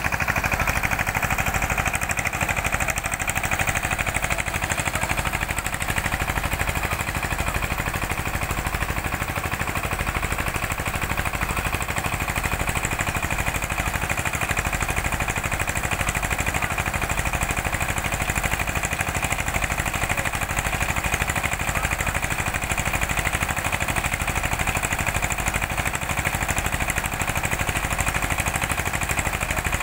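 Diesel engine running steadily with a fast, even chugging beat.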